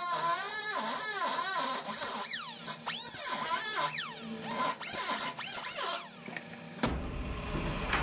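Pneumatic grinder grinding into the sheet-metal welds of a truck cab corner, its whine sweeping up and down in pitch as it bites into the metal and eases off. About seven seconds in it stops abruptly and gives way to a low, steady noise.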